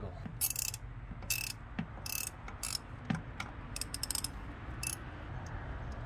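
Ratchet wrench clicking in short, irregular bursts as its handle swings back, working loose a 10 mm coil-pack bolt.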